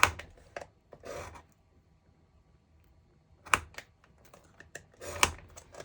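Scattered sharp taps and clicks of cardstock and a scoring tool against a scoring board, with short scraping strokes about a second in and again near the end as score lines are made.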